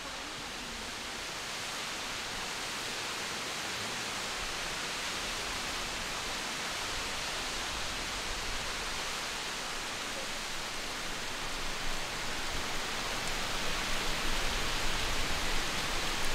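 Steady rushing hiss of falling or running water, growing slightly louder, with a low fluttering rumble building in the second half.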